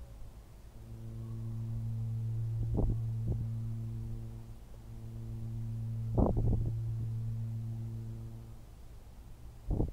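A steady low hum held twice, each time for about three and a half seconds, swelling up and fading away, with a few soft knocks in between.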